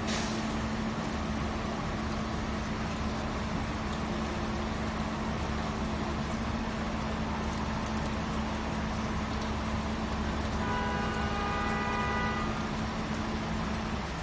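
Steady street noise with a continuous low hum, as of traffic or idling vehicles. A horn-like tone sounds for about two seconds near the end.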